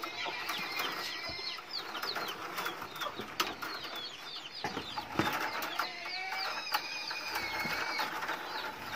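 Birds chirping over and over in short falling notes, with scattered sharp clicks and taps from bamboo strips being worked into a basket.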